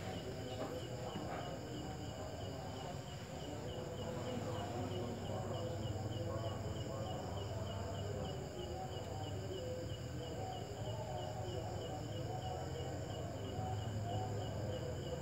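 An insect chirping steadily, about three short high chirps a second, over a low steady hum.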